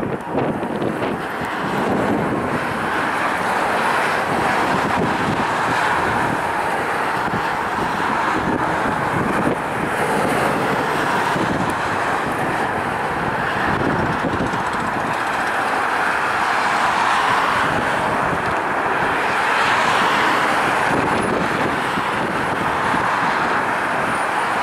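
Gulfstream G-IV's twin Rolls-Royce Tay turbofans: steady jet noise as the business jet rolls out after landing and taxis.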